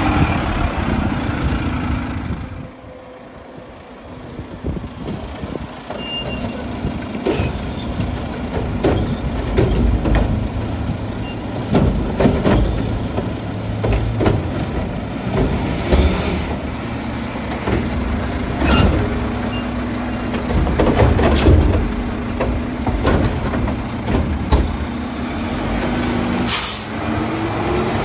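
Mack LR front-loader garbage truck working at the curb: the engine and hydraulics hum steadily under repeated clanks and air hisses from the Curotto Can arm. A sharp air hiss comes near the end, then the engine revs up.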